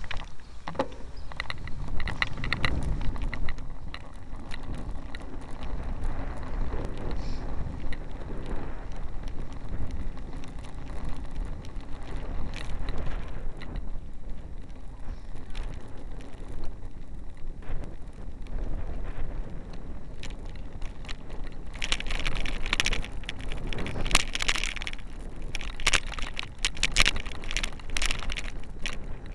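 Low road rumble from a moving vehicle, picked up by a loosely fixed 808 #3 keychain camera, with frequent clicks and rattles. Gusts of wind noise buffet the small microphone over the last several seconds.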